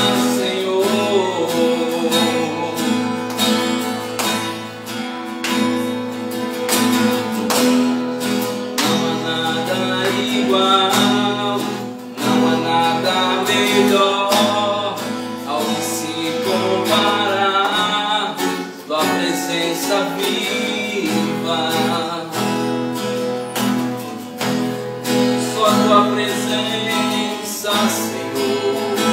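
Steel-string acoustic guitar strummed steadily as accompaniment to a worship song.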